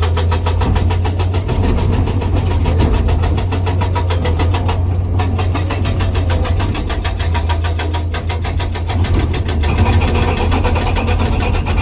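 Hydraulic rock breaker on a Komatsu PC200 excavator hammering hard rock in rapid, even blows, over the excavator's diesel engine running steadily. The hammering breaks off briefly twice.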